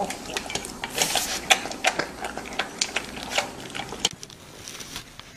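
A pug eating dry kibble from a stainless steel bowl: rapid, irregular crunching and kibble clinking against the metal, stopping about four seconds in.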